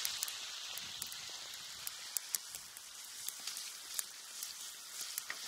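Burgers frying in grease in a cast iron frying pan: a steady sizzle with irregular sharp pops and crackles.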